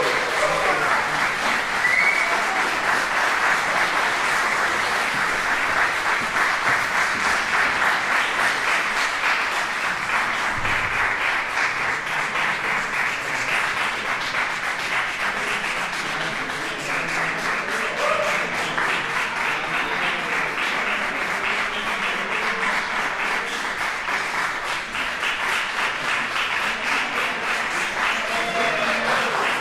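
Audience applauding steadily, a dense, continuous clapping that holds its level throughout.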